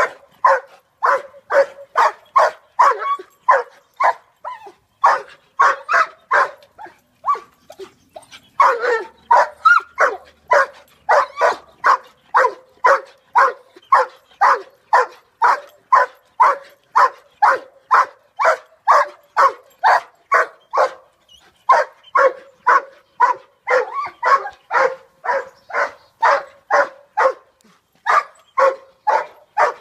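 A dog barking over and over, about two barks a second, with a few short pauses.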